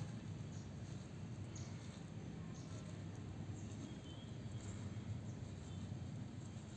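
Faint, steady low outdoor rumble with a few faint ticks, and a brief faint high chirp about four seconds in.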